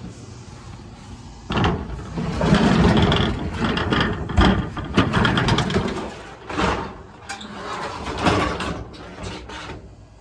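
Sheet-metal garden shed door sliding and rattling open, with a run of clattering knocks and bangs that starts about a second and a half in and dies away near the end.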